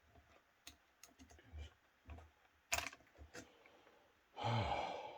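Light clicks and taps of small plastic and metal parts being handled as a Stihl FS40 strimmer is taken apart, with one sharper knock a little under three seconds in. Near the end a man gives a short, loud voiced breath.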